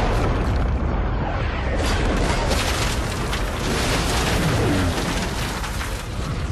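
Loud, continuous explosion rumble with crackling debris, a dense action-movie sound-effects mix of blasts and wreckage being thrown about.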